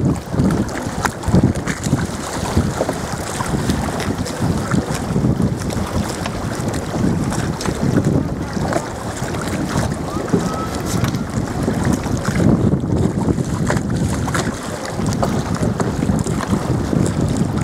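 Wind buffeting the microphone in gusts, with choppy water lapping and splashing close by.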